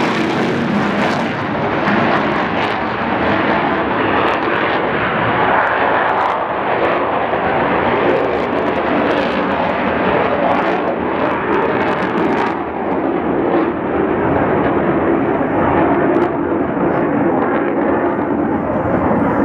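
The twin Eurojet EJ200 turbofans of a Eurofighter EF-2000 Typhoon climbing away in afterburner after takeoff: a continuous loud jet roar that loses its highest hiss after about a second as the jet draws away.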